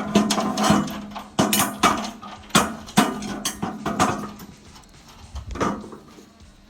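Irregular metallic clanks and knocks of steel frame parts, bolts and tools being handled during frame assembly, thinning out near the end, over a steady low hum.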